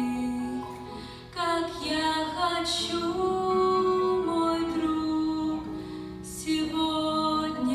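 A song: a woman's voice singing long, held notes over instrumental accompaniment.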